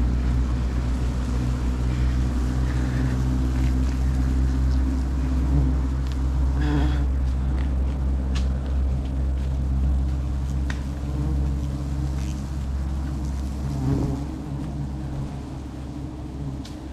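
Small boat's outboard motor running steadily, easing off over the last few seconds, with a few short knocks over it.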